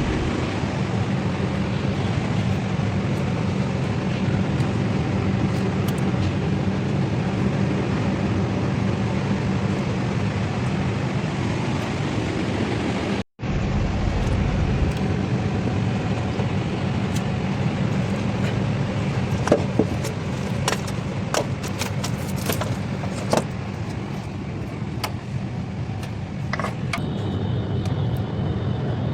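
Nissan VQ25 V6 engine running steadily. It is broken by a sudden cut to silence about halfway through, and scattered sharp clicks and taps are heard in the later part.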